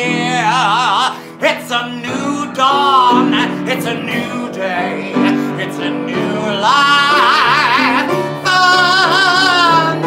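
A singer holding long notes with a wide vibrato over acoustic guitar and upright piano.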